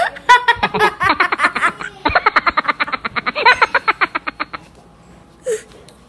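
A girl laughing hard in quick repeated bursts. The laughter stops about four and a half seconds in, and one short sound follows about a second later.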